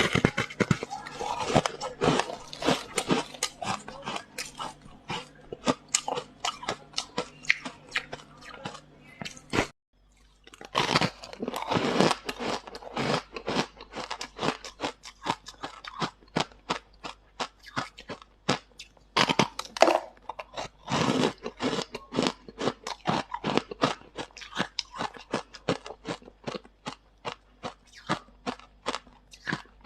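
Close-up crunching and chewing of frost ice: rapid crisp bites and grinding, with a brief break about a third of the way through.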